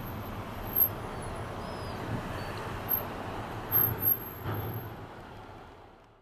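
Outdoor background noise at a port: a steady low rumble with a few short bumps. It fades out smoothly near the end.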